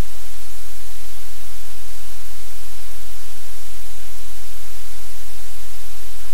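Loud, steady hiss of static with a low hum underneath, and no other sound.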